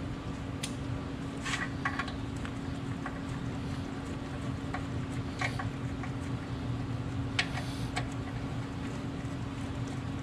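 Scattered sharp metallic clicks and clinks from a hand wrench tightening the front brake caliper bolts, about eight of them spread unevenly, over a steady low background hum.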